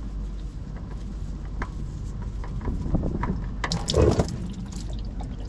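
Old engine oil dripping and trickling from a just-loosened oil filter into a drip pan, with a few clicks and knocks of handling. A louder, noisier stretch comes about four seconds in.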